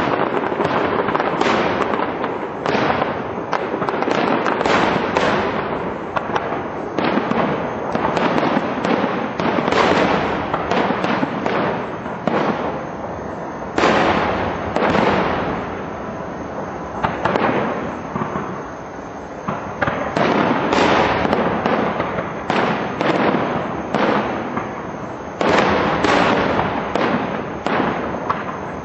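Aerial fireworks display: shells bursting one after another in a dense, near-continuous string of bangs and crackles.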